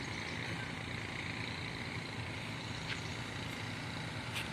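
Kobelco excavator's diesel engine running steadily, with a couple of faint clicks about three and four seconds in.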